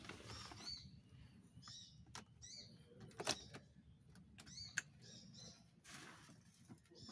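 Faint bird chirps, short high arching notes repeated every second or so, with a few sharp clicks.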